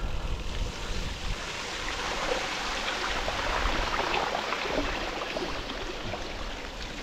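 Bicycle tyres ploughing through shallow floodwater on a road, a steady rushing hiss of spray and wash that swells louder through the middle and eases near the end.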